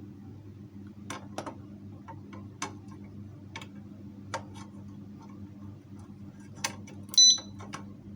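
Motorcycle alarm disc lock giving one short, high-pitched electronic beep about seven seconds in. Before it come a few scattered light clicks, over a steady low hum.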